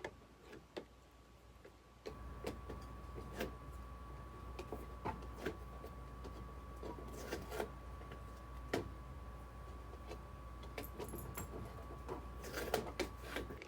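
Light handling sounds: scattered soft taps and clicks as craft foam pieces and a cutting mat are moved and set down on a table. About two seconds in, a faint steady hum with a thin whine sets in.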